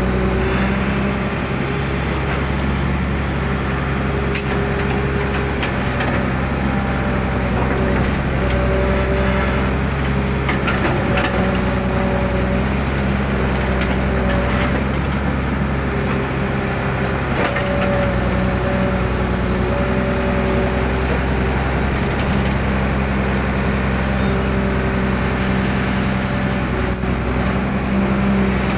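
Hydraulic excavator's diesel engine running steadily under load as it digs out a sand-filled drainage ditch, heard from the operator's seat. A hydraulic whine swells and fades every few seconds as the boom and bucket move, with a few faint knocks of the bucket.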